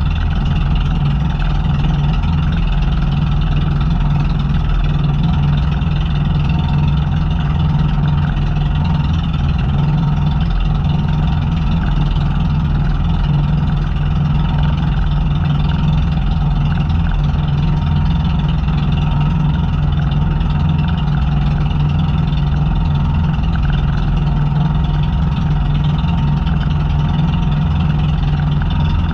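Engine of a motorized outrigger fishing boat (bangka) running steadily under way, a constant drone with no change in pitch.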